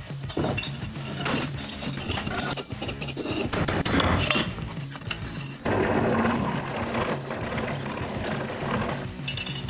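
Clinks of steel tube being handled and marked on a workbench. About six seconds in, a drill press starts running and drills an 8 mm hole through the square steel tube.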